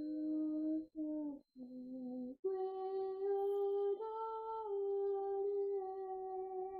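A woman's voice singing a slow, wordless melody of long held notes: a few shorter notes with brief breaks, then one long sustained note that steps up in pitch about four seconds in and settles back down a moment later.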